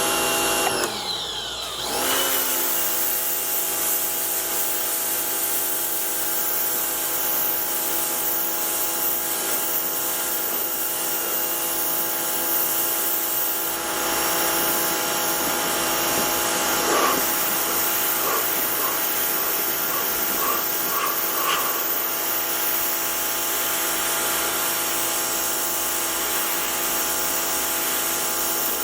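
Harbor Freight Portland electric pressure washer running, its motor and pump giving a steady whine over the hiss of the water spray. About a second in, the pitch falls away and climbs back up as the motor briefly slows and restarts.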